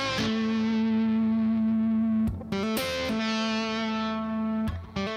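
Electric guitar, a single-pickup four-way Esquire, played through an amplifier in its normal switch position with the volume and tone controls in circuit: two chords picked and left to ring for about two seconds each.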